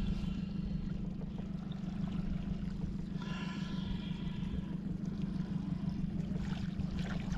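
Boat's outboard motor idling, a steady low drone. A fainter higher whine with several even tones comes in at the start and again for about two seconds from around three seconds in.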